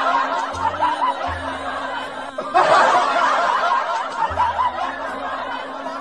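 Dubbed-in laughter sound effect: many people snickering and giggling together, breaking off briefly a little after two seconds in and starting again.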